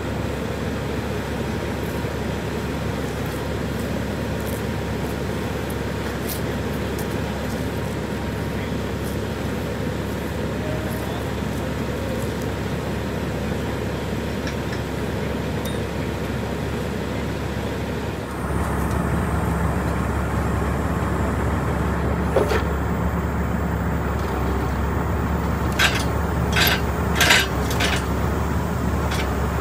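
Heavy wrecker's diesel engine running steadily while it hooks up a bus, becoming louder with a low hum partway through. Several sharp metal clanks from the wheel-lift gear come near the end.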